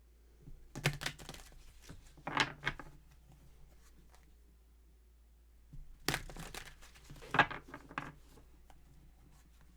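Tarot cards being shuffled and handled: two short bouts of rustling and snapping card noise, a few seconds apart.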